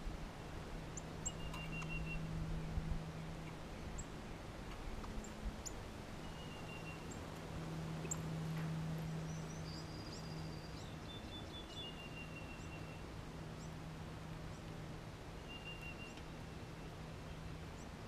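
Small songbirds calling: short, high, rapidly pulsed trills recurring every few seconds, with scattered sharp chips and a higher call about halfway through, over a steady low hum.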